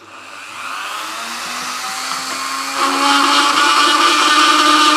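Dremel rotary tool with a small diamond bit switching on, its whine rising in pitch as it spins up. It then holds a steady whine, which gets louder and rougher about three seconds in as the bit starts grinding the lead figure.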